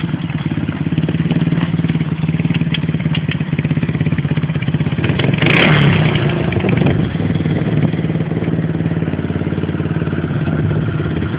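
Engine of a homemade two-wheel-drive all-terrain motorcycle running steadily under way, with a brief louder burst about halfway through.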